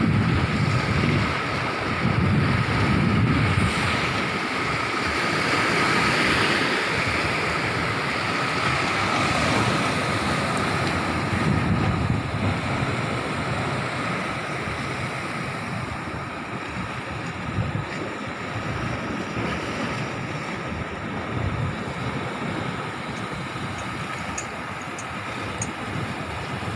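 Sea surf washing on the shore, a steady rushing noise, with gusts of wind buffeting the microphone in low rumbles.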